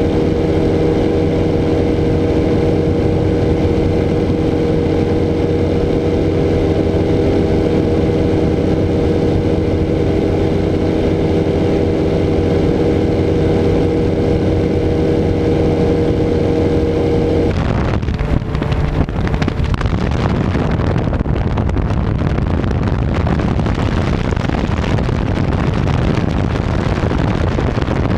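Ultralight trike's engine and propeller running steadily in cruise flight, with airflow noise. About two-thirds of the way through the sound changes from a steady hum to a rougher, windier rush at the same loudness.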